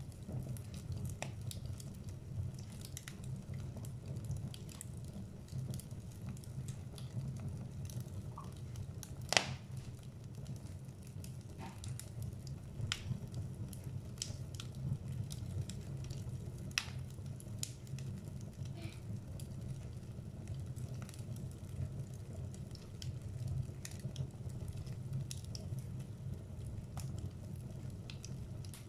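Log fire burning in a fireplace, crackling with irregular pops and snaps over a steady low rumble; one sharp pop about nine seconds in stands out above the rest.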